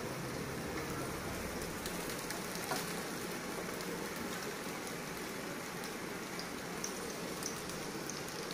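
Taro root sticks sizzling steadily as they fry in hot oil in a wok, with a few faint light clicks over the sizzle.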